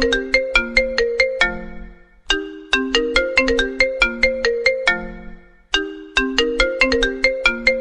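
Smartphone ringtone playing: a short melody of quick, bell-like notes. The same phrase repeats about every three and a half seconds, with a brief pause before each repeat.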